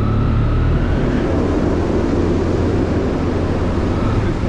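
Motorcycle engine running steadily under way, a continuous low drone with rushing noise over it.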